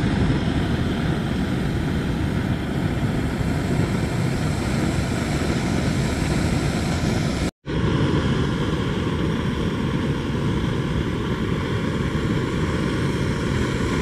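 Backpacking gas canister stove burning at full flame under a metal pot: a steady rushing hiss from the burner. It cuts out for an instant about halfway through, then carries on unchanged.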